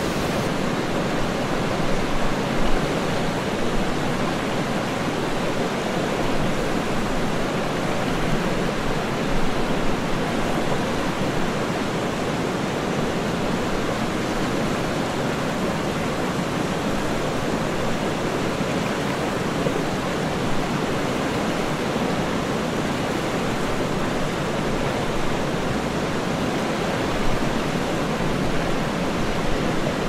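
Steady rush of water from a rocky stream running over small cascades and falls.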